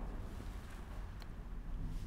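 Quiet room tone: a steady low hum with faint background hiss, and a single faint tick a little past one second.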